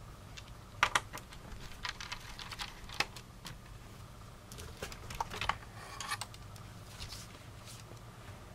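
Plastic clicks and snaps of a Dell Vostro 1500 laptop's palmrest (the upper case half) being unclipped and lifted off the base. They come as scattered sharp clicks, the loudest a quick pair about a second in, with a cluster around the middle.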